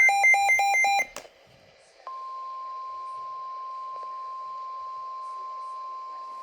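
A weather alert radio sounding: rapid pulsed alarm beeps for the first second, a moment of faint hiss, then the steady single-pitch NOAA Weather Radio warning alert tone starts about two seconds in and holds. The tone announces an incoming warning broadcast, here a severe thunderstorm warning.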